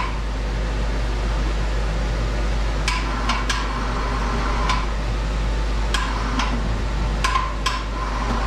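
Sharp metallic clinks and knocks, about nine of them spread over the second half, from the lifting strap, pulley and hoist hardware as a small Evinrude outboard is rigged and hoisted off its stand. A steady low hum runs underneath.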